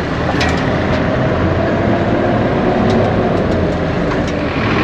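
Steady street traffic noise: a motor vehicle running nearby, swelling slightly in the middle and growing a little louder near the end.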